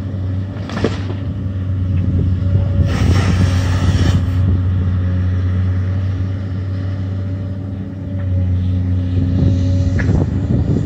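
Tracked excavator's diesel engine running steadily while its bucket pushes over a tree. The tree cracks about a second in, and its branches crash to the ground from about three to four seconds in.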